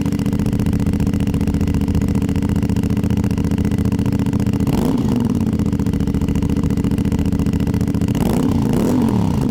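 Twin-cylinder motorcycle engine idling through its dual exhaust, with light throttle blips that briefly raise and drop the revs about halfway through and again near the end.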